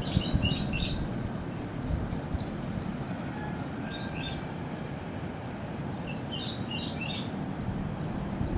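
Small birds chirping in short, quick clusters: near the start, about four seconds in, and again around seven seconds in. Under them runs a steady low rumble of outdoor background noise.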